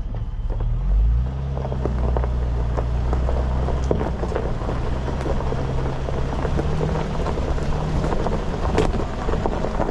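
Camper van driving: a steady low engine hum that picks up about a second in and rises a little again later, under a constant crackle of tyres on the road surface.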